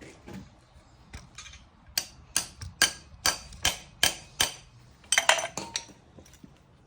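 A run of sharp metallic clicks, about two and a half a second for a couple of seconds, then a brief clatter of metal on metal: hand tools working on a 5.3 V8 engine block.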